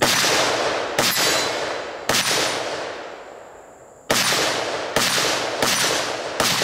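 AR-style carbine firing single aimed shots: seven shots, about a second apart, with a longer pause after the third. Each report trails off in a long echo.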